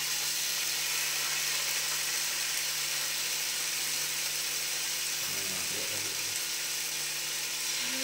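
Steady hiss with a low hum under it as chicken satay skewers cook on a round grill pan over a lit gas burner. A faint voice is heard briefly about five seconds in.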